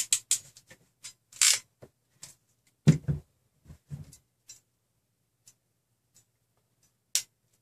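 Irregular clicks, scrapes and light knocks as a hand crimping tool and wires are handled on a tabletop while crimping connector pins onto wire ends, with a heavier knock about three seconds in.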